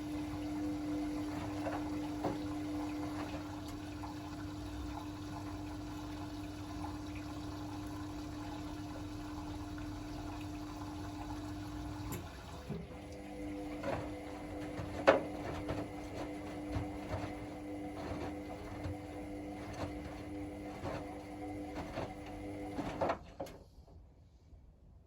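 Hotpoint WML540 washing machine taking in water early in its wash cycle: a steady rush of water with a hum. About halfway in, the rush lessens and irregular knocks and sloshes come in. Near the end it all stops abruptly.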